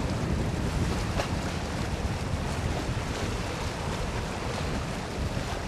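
Wind buffeting the microphone over the low, steady rumble of a Boeing 737-700's CFM56-7B turbofan engines, fading slightly as the jet flies away on final approach.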